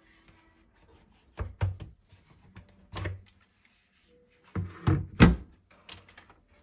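A series of knocks and thunks from hard objects being handled and set down, about seven in all, the loudest a little after five seconds in.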